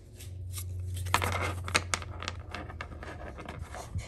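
Foil Pokémon booster pack wrapper crinkling and tearing as it is opened, with cards being handled: a string of sharp crackles and clicks.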